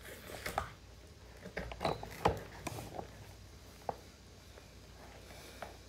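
Wet sucking and slurping at the open end of a cooked lobster tail shell as the meat is drawn out by mouth, with scattered short smacks and clicks. The loudest comes about two seconds in; the second half is quieter.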